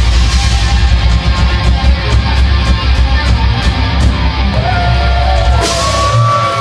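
Heavy metal band playing live: distorted electric guitars, bass and drums with a heavy low end and steady drum hits. Near the end a crash comes in, the low end drops away, and long bending notes ring on as the song winds down.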